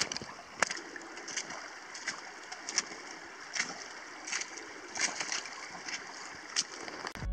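Hiking boots splashing through shallow water on a wet, stony trail, about one step every 0.7 seconds, over a steady hiss of running water.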